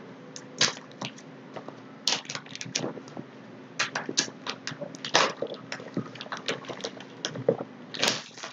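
Clear seal tape being peeled off a cardboard smartphone box by hand: scattered crackles and clicks of the tape and the cardboard, over a faint steady hum.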